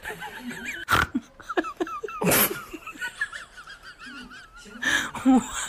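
A parakeet chatters in warbling high notes. Three loud, wheezing bursts of human laughter break in over it, about a second in, a little past two seconds, and near the end.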